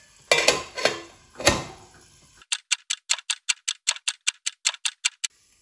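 An aluminium lid clanking as it is set onto a metal karahi, a few sharp metal knocks. Then a clock-ticking sound effect, about six quick ticks a second for nearly three seconds, marking the minutes of covered cooking passing.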